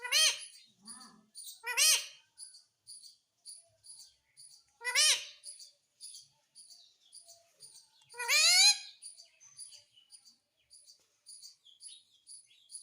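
A parrot giving four loud, shrill squawks: one near the start, one about two seconds in, one about five seconds in, and a longer rising call about eight seconds in. Faint high chirps keep up a steady patter of about three a second throughout.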